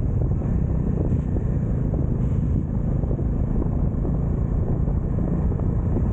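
Wind buffeting the microphone of a camera riding on a moving Bajaj Dominar motorcycle, mixed with the bike's steady engine and road rumble, with no change in speed.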